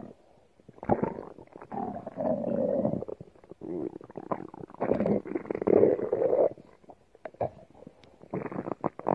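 Stomach growling and gurgling in several irregular rumbling stretches of a second or two, with short pauses between.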